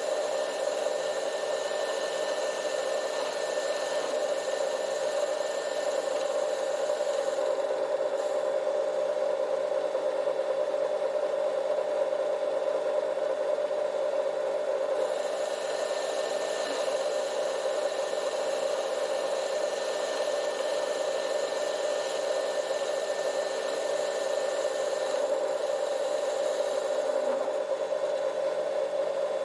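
Metal lathe running steadily while turning a jacking screw, a constant hum with several fixed tones over a hiss. The higher hiss drops away for several seconds in the middle, then returns.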